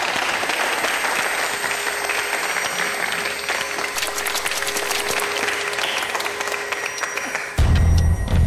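A crowd applauding, with a faint steady tone underneath. About seven and a half seconds in, loud music with a heavy pulsing low beat cuts in suddenly.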